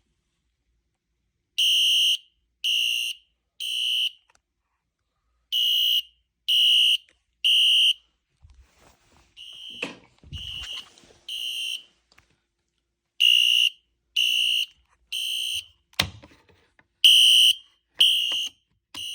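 Wheelock Exceder fire alarm horn sounding in the temporal-3 evacuation pattern: three short, high-pitched beeps, a pause, then three more, repeated five times. The alarm starts sounding a second and a half in. There are a few knocks and rustles near the middle, and a sharp click later.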